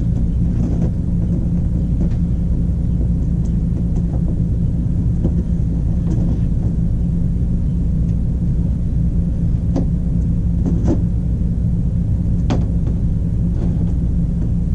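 Steady low droning hum, with a few light clicks and taps as a wall light switch is worked back into its opening.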